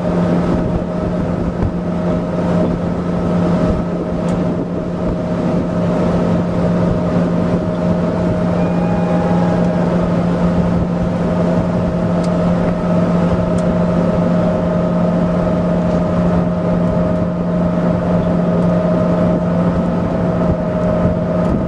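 Motorboat engine running steadily at an even pitch, over a constant rushing noise.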